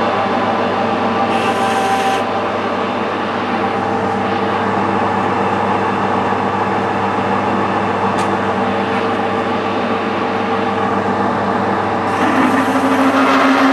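Metal lathe running while a parting tool is fed into a spinning metal bar: a steady cutting rasp over the lathe's hum. It gets louder for the last second or so.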